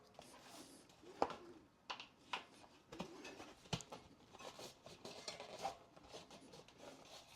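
Faint handling sounds of a bicycle tire being checked by hand: scattered light knocks and clicks, the loudest about a second in and near four seconds, with soft rubbing of rubber in between.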